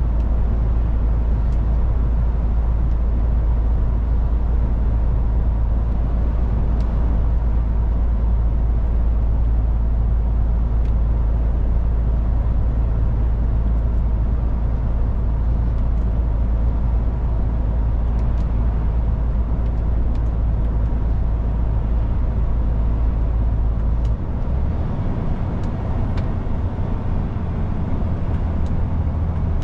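MAN truck's diesel engine running under way with road noise, a steady low drone; about 24 seconds in the engine note drops and changes, as the engine speed changes.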